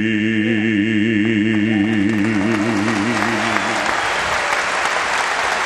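Southern gospel singers holding the final note of the song with a wide vibrato over a sustained accompaniment chord; the music dies away about three and a half seconds in as audience applause swells and takes over.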